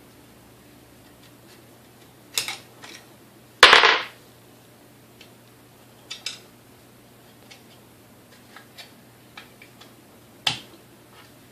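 Intermittent small metallic clicks and taps of hand tools and metal parts while the brush holders and switch lever are being worked out of a KitchenAid 3C mixer's motor housing, with a louder clatter just before four seconds in and a sharp knock near the end.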